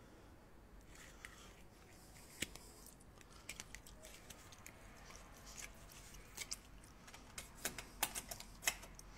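Faint scattered clicks and rubbing of a smartphone being handled and carried about, with a cluster of sharper ticks near the end.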